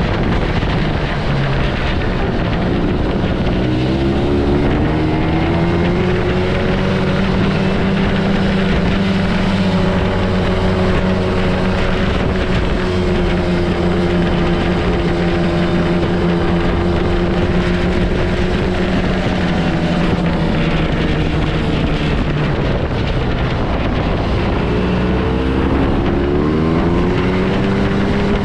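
Yamaha Bravo snowmobile's two-stroke engine running at a steady cruising pitch. It eases off and climbs back up a few seconds in, and again near the end.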